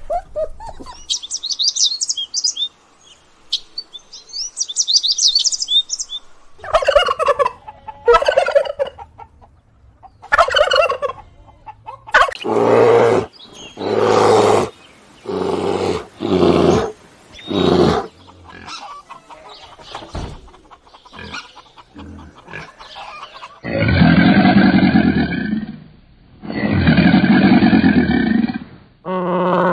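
A series of farm animal calls: high bird chirping for the first few seconds, then a run of short separate calls, then two long, low calls near the end.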